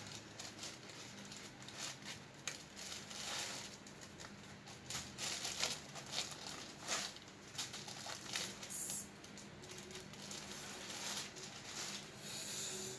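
Plastic wrapping and foam packing crinkling and rustling in irregular bursts as a new laptop is pulled out of its packaging.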